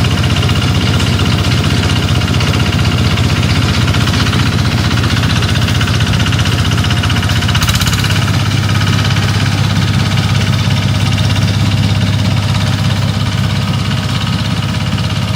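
Small engine of a motorised rice-cutting machine running steadily, its note shifting slightly about eight seconds in.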